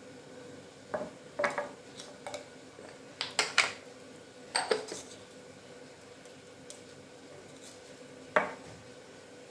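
Kitchen utensils and containers clinking and knocking, about seven short sharp strikes at uneven gaps, with a faint steady hum underneath.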